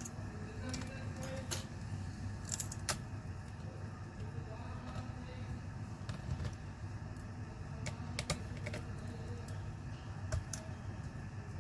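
Small sharp clicks and taps of hand tools and small laptop parts being handled during disassembly, scattered unevenly, over a steady low hum.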